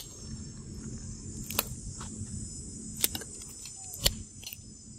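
Insects buzzing steadily in a high, even drone, over a low rumble, with a few sharp separate clicks about a second apart; the loudest click comes about four seconds in.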